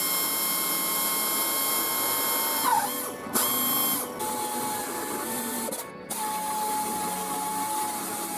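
A small electric power tool running with a steady high whine. Its pitch drops briefly near three seconds, as if under load, and it cuts out and restarts about three times.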